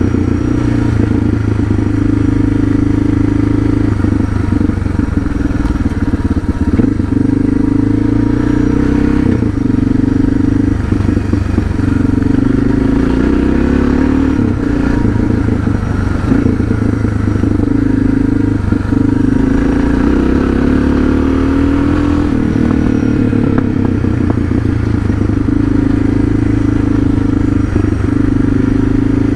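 Suzuki DR650's single-cylinder four-stroke engine running while the motorcycle is ridden at a fairly steady speed, with scattered small knocks and clatter.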